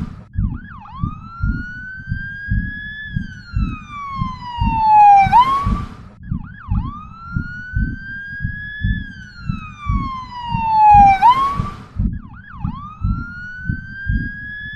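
Emergency siren wailing: a slow rising tone that falls away and ends in a quick upward yelp, repeating about every six seconds, over a steady low pulsing about three times a second.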